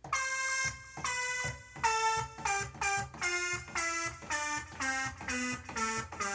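Single notes played one at a time on an Alesis Q49 controller keyboard, voiced by a bright software keyboard sound, about two notes a second, stepping down in pitch.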